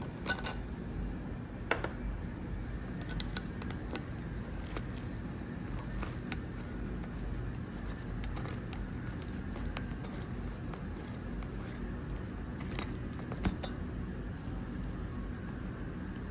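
Scattered light metallic clinks and taps of hand tools and screws as bolts come out of a seat's metal bracket, loudest just after the start and twice about thirteen seconds in, over a steady low hum.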